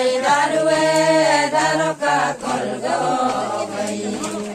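A group of voices chanting a song together with no instruments, in long held notes with short breaks between phrases.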